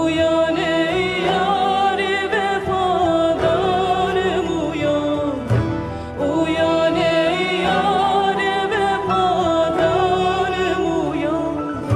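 Music: a voice singing a slow melody with long, wavering held notes and ornaments over a steady low accompaniment.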